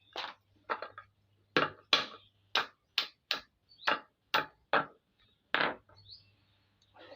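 Mud crab shell being cracked open: about a dozen sharp knocks in a quick, uneven run that stops about six seconds in.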